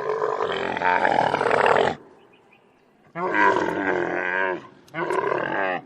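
Camel calling: a long call of about two seconds, then after a pause two shorter calls close together near the end.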